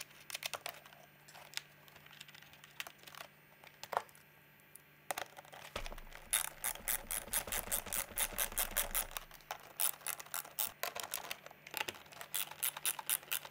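Ratcheting driver with an 8mm socket clicking in quick runs, about five clicks a second, as it tightens the nuts holding a car door speaker. Before that, a few scattered light clicks as the nuts are handled and started.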